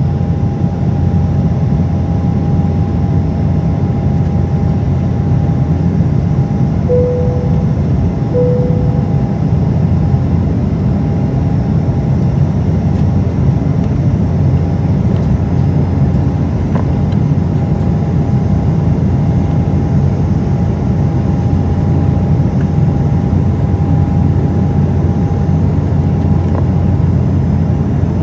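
Embraer E190 airliner cabin noise in flight: a steady low drone of engines and airflow with a thin steady whine above it. Two short chime tones about a second and a half apart, around seven seconds in.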